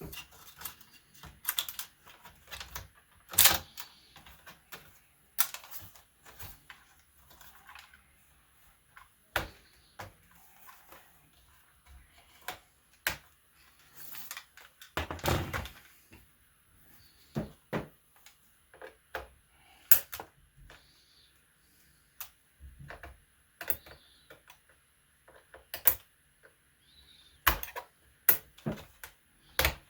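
Plastic parts of an HP G60 laptop being handled during disassembly: scattered clicks, taps and knocks. A louder knock comes about 3.5 s in and a longer clattering rattle around 15 s.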